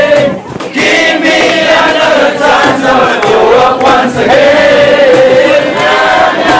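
A group of voices singing or chanting together loudly, many voices at once over some background music.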